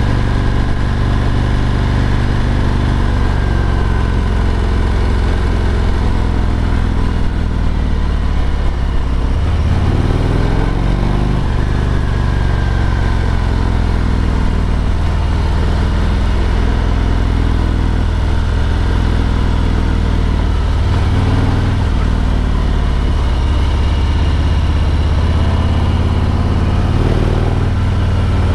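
Harley-Davidson Road King Special's Milwaukee-Eight V-twin running under way, heard from the rider's seat: a deep, steady engine note that rises and falls in pitch a few times as the bike speeds up and slows on the lane.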